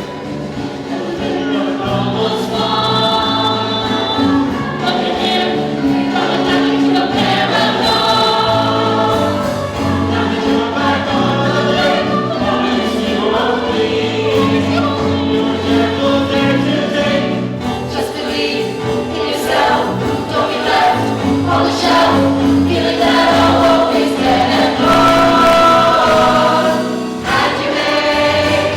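Many voices singing together in chorus: a musical-theatre ensemble number, sung continuously.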